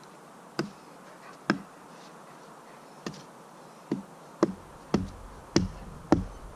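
Wood being chopped: sharp knocks of a blade striking wood, a few spaced out at first, then about two a second with heavier thuds after the middle.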